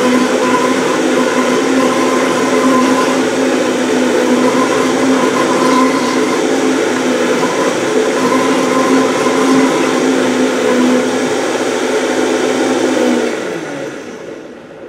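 Vitamix blender motor running at high speed, blending a liquid mix of vegetable broth, olive oil, tomato paste, soy sauce and garlic smooth. It is a steady whirring hum. Near the end the motor is switched off and winds down, falling in pitch.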